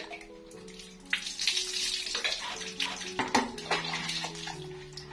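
Water running and splashing, as in a bath or washbasin, over background music of soft held notes.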